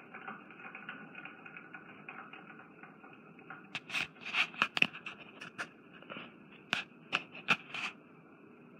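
Film soundtrack heard through a TV speaker: a faint steady hiss, then from about halfway in a run of irregular sharp clicks and taps lasting about four seconds.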